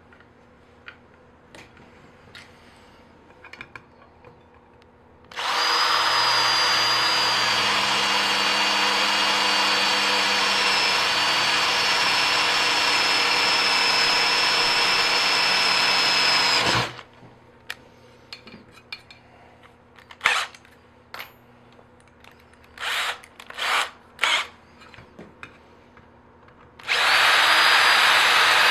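Handheld power drill cutting into aluminium angle stock, countersinking screw holes. It runs steadily with a constant whine for about eleven seconds, gives a few short blips of the trigger, then runs again for about two seconds near the end. Faint handling clicks come before the first run.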